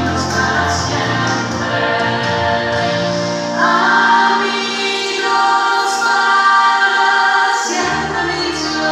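A large chorus of girls' voices singing a song together over instrumental accompaniment. The bass drops out about three and a half seconds in and comes back near the end.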